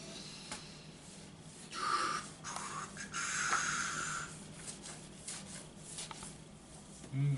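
A countertop being scrubbed with soap: rasping rubbing strokes, the longest about two to four seconds in, with a few small knocks.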